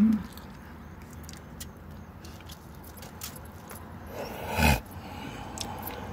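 Light crinkling and clicking of aluminium foil and a foam takeout box being handled, over the low steady hum of a car cabin, with a short dull thump about three-quarters of the way through.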